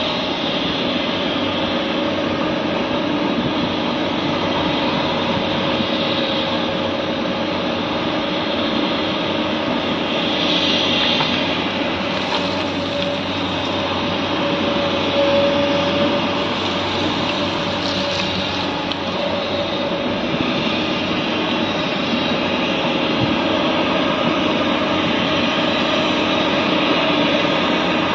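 Tata Hitachi hydraulic excavator's diesel engine running under load with a steady whine while it digs and swings to load coal into a truck.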